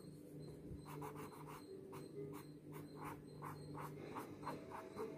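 Pencil strokes scratching on drawing paper: quick, repeated short strokes, about three a second, as long strands of hair are sketched in.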